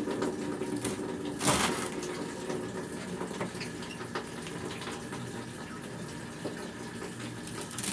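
A few knife cuts and knocks on a plastic cutting board as a bunch of pechay (bok choy) is chopped, the clearest about a second and a half in, over a steady low hum and hiss.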